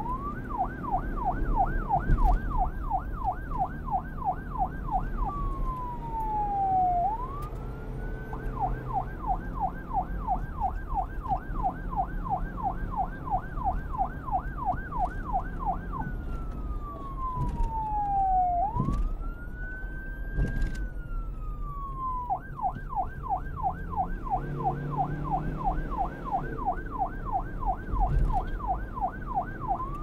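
Police car siren switching between a fast yelp, many quick up-and-down sweeps, and a slower wail that glides down and back up. The pattern runs yelp, wail, yelp, a longer wail, yelp again, with a rising wail at the end, over a low rumble.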